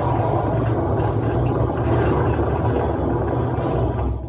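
Live electronic noise music: a loud, dense, steady drone with a heavy low rumble, played on modular synthesizer and electronics.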